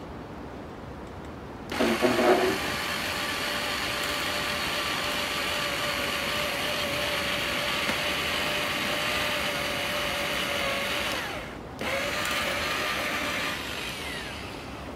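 Corded electric drill running with a steady whine, drilling into wood; it starts about two seconds in, cuts out briefly and starts again, then drops in level near the end.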